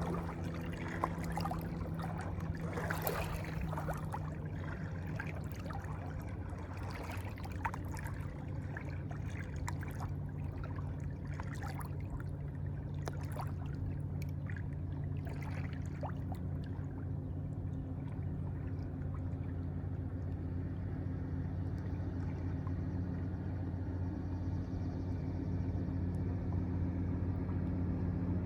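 Water trickling and splashing over a steady low motor hum. The splashing thins out about halfway through, and the hum grows slightly louder near the end.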